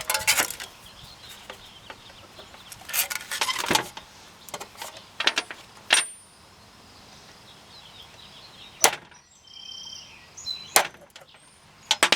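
Center punch tapping sheet metal to dent a starting point for a drill bit: a series of sharp metallic taps and clicks, some in quick clusters and some single, with a little clatter of metal tools being handled.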